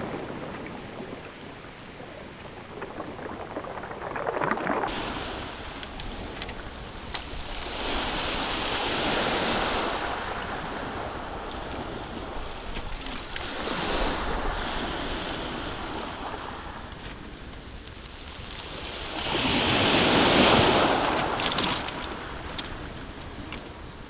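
Surf breaking and washing over a pebble beach, swelling and fading every four to six seconds, the loudest wave about twenty seconds in.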